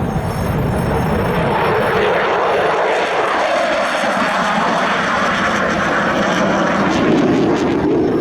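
F-16 fighter jet's engine, a loud continuous jet noise whose pitch shifts as the jet moves.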